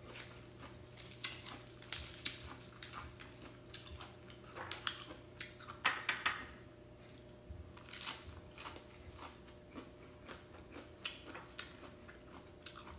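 Close-up eating sounds: chewing and crunching of fresh greens and sticky rice, a string of irregular crunches and mouth clicks.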